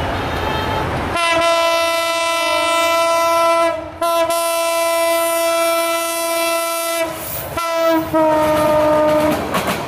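Meter-gauge diesel locomotive's air horn blowing as the train approaches and passes. There is one long blast of about six seconds with a brief break in the middle, then a short toot, then a last blast that sags slightly in pitch as the locomotive goes by. The rumble of the approaching train is heard in the first second.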